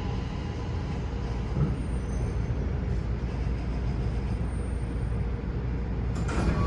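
Running noise of a Toei 6500-series subway train, heard from inside the car as it slows into an underground station: a steady low rumble of wheels and motors. A sharp hiss starts suddenly near the end, as the train comes to a stop.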